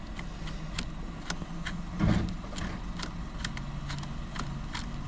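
Phillips screwdriver backing out screws from the plastic steering-column housing, with scattered short clicks and ticks as the tip turns and slips in the screw heads. There is a low thud about two seconds in, over a steady low hum.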